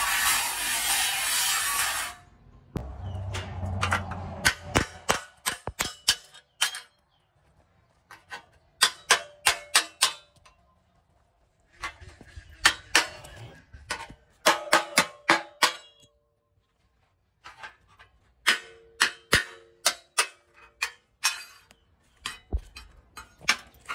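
Angle grinder cutting through a steel beam, stopping about two seconds in. Then clusters of sharp hammer blows on steel, each with a short metallic ring, separated by quiet pauses.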